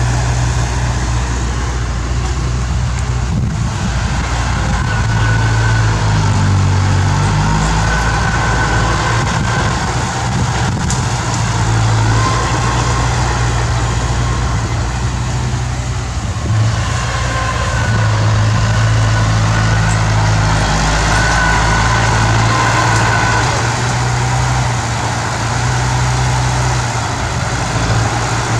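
Bulldozer's diesel engine running steadily under load, its pitch shifting a few times as the machine works.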